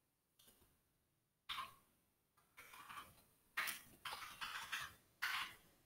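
Faint computer-keyboard typing, in a few short runs of keystrokes with pauses between them.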